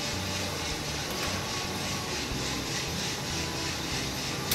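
Rubasse near-infrared drum coffee roaster running mid-roast: a steady whoosh of the fan and turning drum with beans tumbling inside, and one sharp click right at the end.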